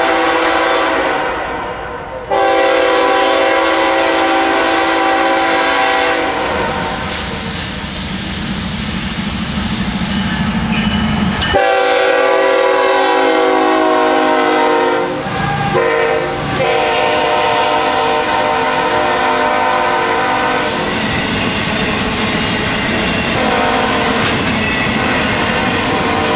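A CSX freight train's diesel locomotive air horn sounds a series of long blasts with short breaks as the double-stack intermodal train passes close by. Under the horn the locomotive engines rumble and the wheels clatter on the rails.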